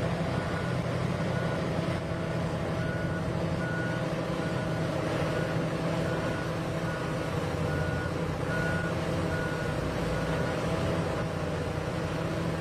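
Komatsu HD785 mining haul truck's reversing alarm beeping about twice a second over the steady running of its large diesel engine. The beeping stops about ten seconds in while the engine runs on.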